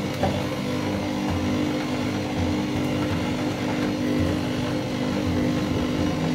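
Old Bosch stand mixer running steadily, its electric motor humming as the dough hook kneads flour and water into a stiff rye bread dough.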